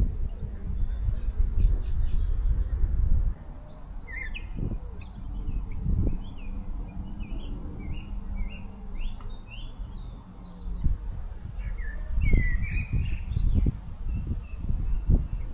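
Several small songbirds chirping and trilling in short high phrases. Under them runs a low rumble, with a few soft thumps, that is loudest in the first three seconds and rises again near the end.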